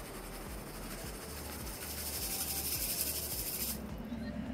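Wet sand and small pebbles swishing in a handheld plastic sifter swirled through a shallow puddle: a steady hiss that grows louder about halfway through and cuts off sharply near the end.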